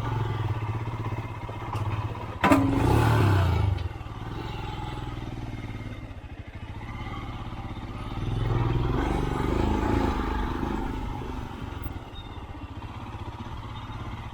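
Motorcycle engine running, louder twice (about two and a half seconds in, and again from about eight to eleven seconds), with a sharp knock at the start of the first loud stretch.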